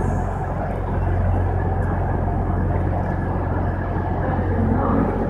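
Steady low hum of a train standing at the platform, under a constant rumble of station noise in the train shed.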